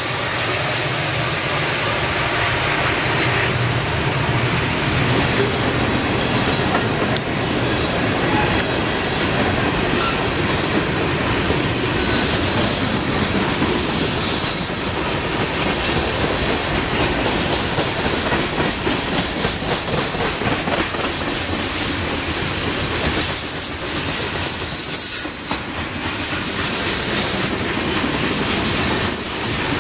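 CSX freight train passing close by. The trailing diesel locomotives drone for the first few seconds, then a string of boxcars rolls past with wheels clicking steadily over the rail. High steel wheel squeal comes in over the last several seconds.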